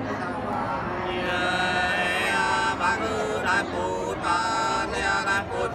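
Voices singing Nùng sli folk song, holding long, drawn-out notes that waver and bend in pitch.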